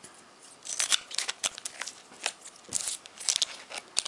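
Foil wrapper of a Pokémon card booster pack crinkling and crackling as it is opened, in a series of short, sharp rustles that begin about a second in.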